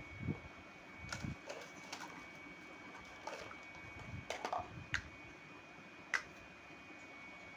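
Irregular light clicks and taps of miniature toy kitchen pieces being handled, with a sharp single click about six seconds in, over a faint steady high hum.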